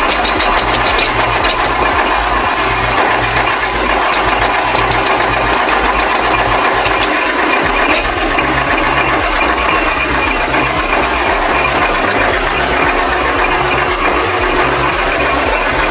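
Engine-driven machine running steadily under a repeating low pulse, with a fast ticking clatter that is strongest in the first half.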